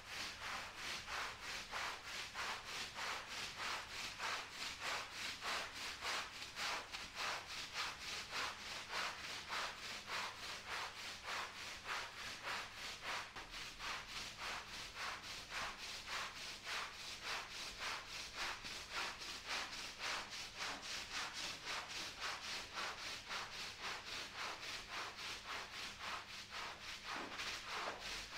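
Stiff-bristled deck brush scrubbing a soap-lathered Persian rug in quick, regular back-and-forth strokes, the bristles working through suds and water.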